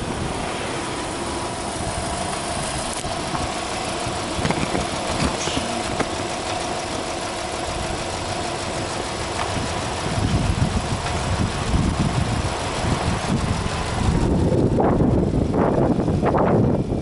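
Subaru Impreza 15S's 1.5-litre flat-four engine idling steadily with the hood open. It gets louder about ten seconds in, and again near the end with a few quick throttle blips.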